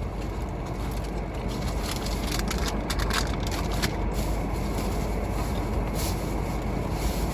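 Steady rumble inside a car, with a few soft clicks between about two and four seconds in.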